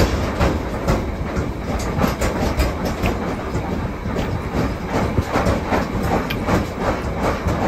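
Forged steel hammer heads clinking and knocking against each other as they are stacked by hand, many irregular sharp clinks over a steady rumbling noise.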